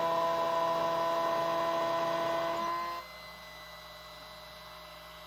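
Genmitsu 4040 Pro Max CNC router spindle running with a steady whine of several tones, which stops suddenly about three seconds in, leaving a quieter steady hum.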